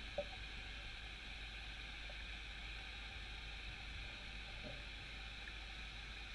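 Faint, steady underwater hiss heard through a GoPro's waterproof housing, with one small tick about a quarter of a second in.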